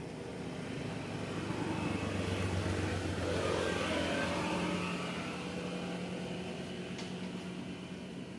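A motor vehicle's engine running nearby, swelling up over a few seconds and then fading, over a steady background hiss; a single short click near the end.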